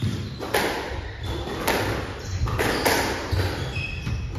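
Squash ball smacked by racquets and hitting the court walls: three sharp smacks a little over a second apart, ringing in the hard-walled court, with dull thuds of movement on the wooden floor.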